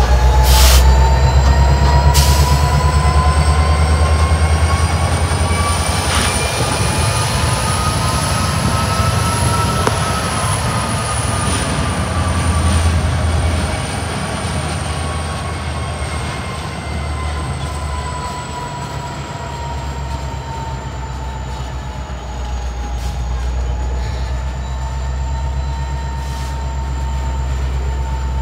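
Norfolk Southern freight train running by: a steady low diesel rumble under a high whining tone that slowly rises in pitch for about ten seconds, then falls back, with a few sharp clicks.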